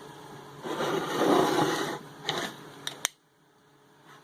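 Rattling, scraping noise of salt and pepper seasoning being put onto raw chicken in a bowl, followed by a few sharp clicks before the sound cuts off suddenly about three seconds in.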